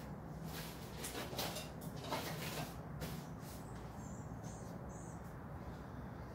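Faint rustling and knocking of tools and objects being handled and moved about on a workbench while searching for a strap wrench, with a few short, faint high squeaks about four seconds in.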